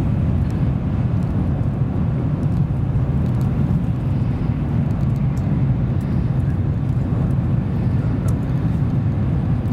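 N700 series Shinkansen running at speed, heard from inside the passenger cabin: a steady low rumble of wheels and air with faint scattered ticks.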